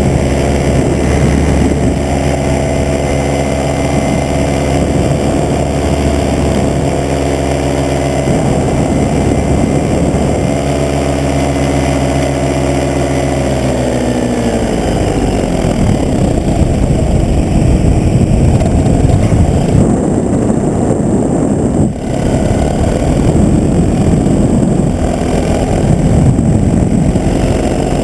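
Paramotor engine running at a steady throttle, then throttled back about halfway through, its pitch falling, leaving an uneven rushing noise.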